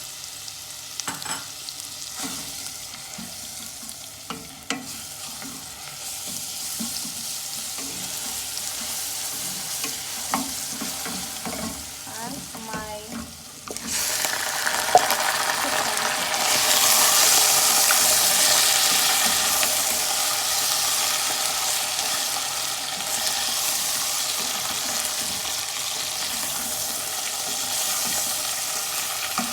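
Onions, curry leaves and garlic frying in hot oil, stirred in the pan with a utensil that clicks and scrapes now and then. About halfway through the sizzle suddenly gets much louder and hissier, and stays loud.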